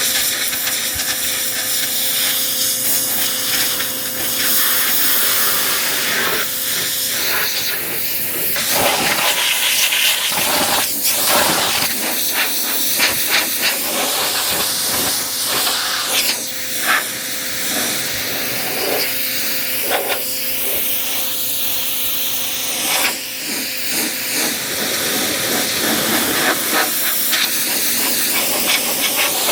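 Pressure washer jet spraying onto a car's body, a loud continuous hiss whose tone shifts and spatters as the spray moves over the panels, with a steady low hum underneath.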